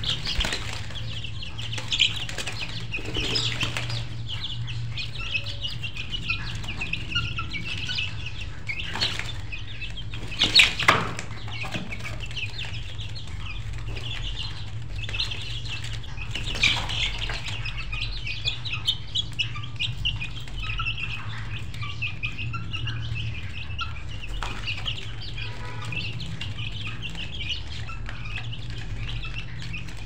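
A flock of chickens: continuous high cheeping and clucking from many birds, with a few sharp, louder noises about nine to eleven seconds in.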